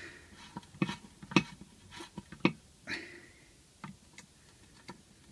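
Irregular light clicks and ticks of a hand screwdriver working the mounting screws of a Briggs & Stratton Classic carburettor into its metal fuel tank, the screws only being nipped down, not tightened.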